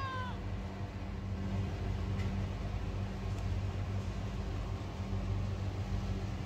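Steady low mechanical hum with a background hiss. The tail of a cat's meow falls away right at the start.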